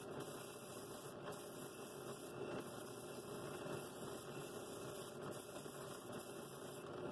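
Drill press running steadily with a flex-pad sanding disc in its chuck, sanding the outside of a wooden bowl held against it.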